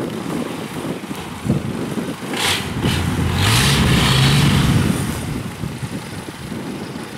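Long-tail boat engine driving a small ferry, its propeller churning and splashing the water. The engine revs up a little past three seconds in and holds its higher pitch, with hissing spray loudest between about three and five seconds.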